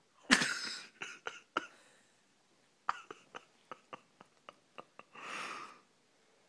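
Stifled laughter: a breathy burst of held-in laughing, then a string of short sharp puffs through the nose about two a second, and another breathy burst near the end.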